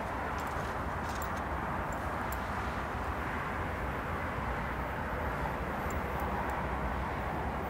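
Steady low rumble and hiss of a train approaching from far down the line, its headlight still distant.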